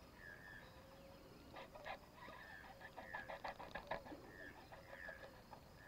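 Faint bird calls: a short, high note repeated about once a second, and in the middle a quick run of rapid clucking calls.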